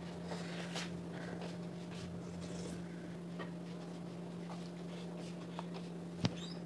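Faint clicks and light scraping of a steel spoon in small steel bowls of dal, over a steady low hum, with one sharper click near the end.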